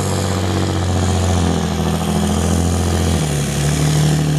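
Diesel engine of a large John Deere tractor running hard under load in a tractor pull; the engine note changes about three seconds in.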